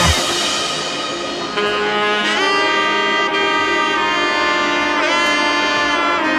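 Background music: a saxophone-like horn holds long, sustained notes, bending in pitch a few times, after a drum-heavy passage stops at the start.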